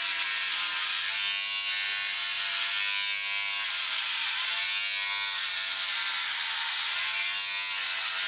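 Handheld electric hair trimmer buzzing steadily as it is run over a man's head, cutting off his hair; its pitch dips slightly a few times as the blades bite into the hair.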